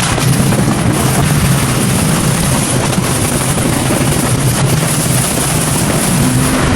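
Steady, loud mechanical drone of a running motor with a constant low hum and a hissing noise above it.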